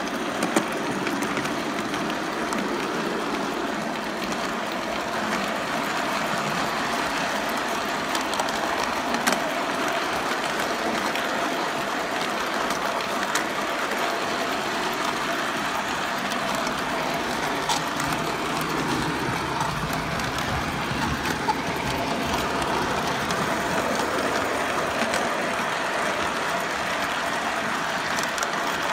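Model train running along its track: a steady rolling and motor noise, with a few sharp clicks scattered through it.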